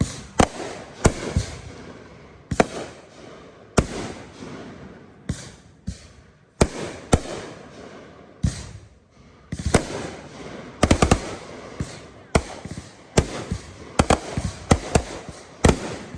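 Fireworks display of aerial shells and 500-gram cakes firing and bursting: irregular sharp booms and cracks every half-second to a second and a half, with a rapid string of reports about eleven seconds in.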